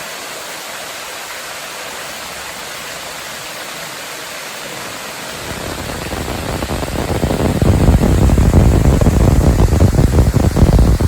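Waterfall water rushing, a steady hiss. About halfway in, a louder, fluttering low rumble comes in and keeps growing.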